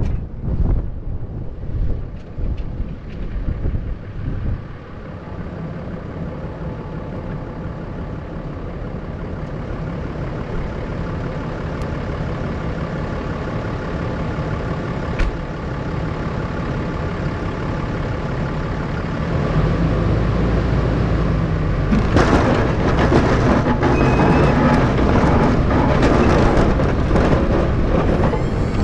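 Pickup truck with a front snowplow driving through snow: steady engine and road noise, which grows much louder and harsher about 22 seconds in.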